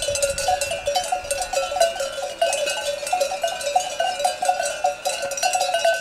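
Many bells on a moving flock of sheep clanking and jingling together in an irregular, overlapping jangle.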